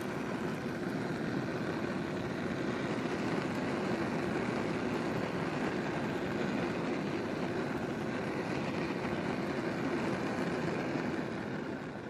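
Gas burner flame burning with a steady rushing roar, beginning to fade near the end as it goes out.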